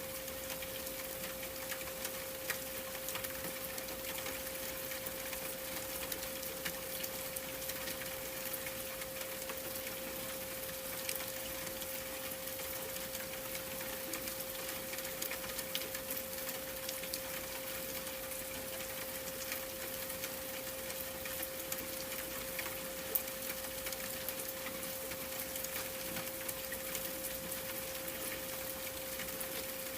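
A steady 528 Hz pure tone held unbroken over an even hiss of rain, with scattered small ticks of drops.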